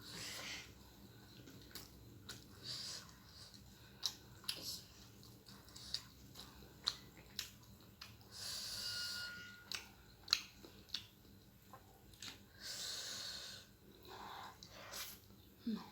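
Close-up eating sounds of spicy instant noodles and egg: wet chewing with many small mouth clicks, and two longer breathy hisses about eight and thirteen seconds in.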